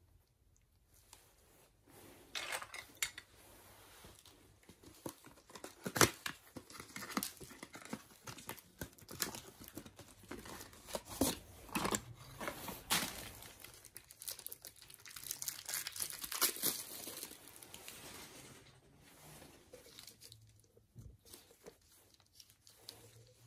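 A clear plastic packaging bag crinkling and tearing as gloved hands unwrap a small plastic gadget, with irregular crackles and a few sharp snaps, the loudest about six seconds in.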